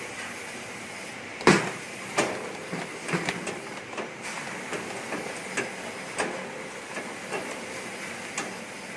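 Stainless-steel young-coconut processing machine running with a steady hum and a faint high whine, broken by irregular sharp knocks and clacks as coconuts are worked in it; the loudest knock comes about a second and a half in.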